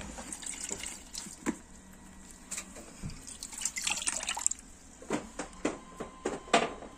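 A hand moving wet laundry around in a plastic basin of soaking water: irregular splashes, drips and sloshing, with brief louder bursts midway and about two-thirds of the way in.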